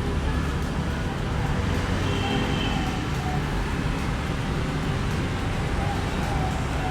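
Steady city street traffic: a continuous low rumble of passing vehicles.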